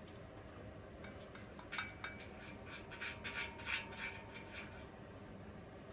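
Light metallic clinks and knocks, a quick run of them in the middle, some with a short ring, as metal fittings are handled while the overhead guard's boom arm is put in place.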